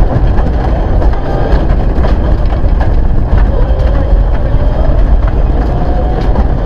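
Mitsubishi Lancer Evolution IX rally car's turbocharged four-cylinder engine under hard acceleration, heard from inside the cabin over a heavy road rumble. The engine note drops once about three seconds in, at a gear change, then climbs again, while gravel ticks and rattles against the underbody.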